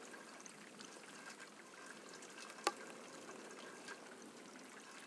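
Faint, steady storm noise of rain and runoff water trickling just after a hailstorm, with a single sharp click about two and a half seconds in.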